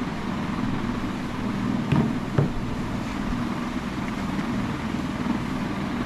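Steady low background hum, with two sharp clicks about half a second apart about two seconds in, as plastic parts of an automatic soap dispenser are handled and fitted together.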